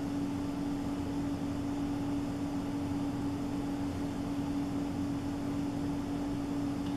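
Steady mechanical hum with one constant low tone over a noise bed, unchanging throughout.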